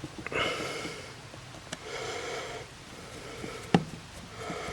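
Two slow breaths through the nose close to the microphone, then a single sharp click near the end.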